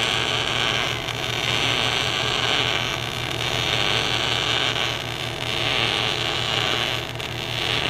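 MIG welding arc on steel burning continuously as a wide bead is laid, a steady hissing crackle that rises and falls slightly in level.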